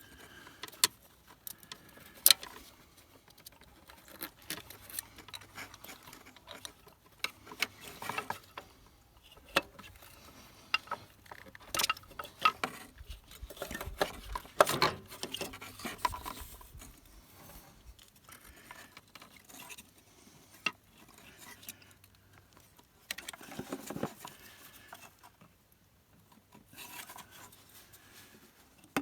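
Irregular clicks, clinks and knocks of hand tools and metal parts being handled during a fuel filter change on a diesel van engine, with the sharpest knocks about 1, 2 and 15 seconds in.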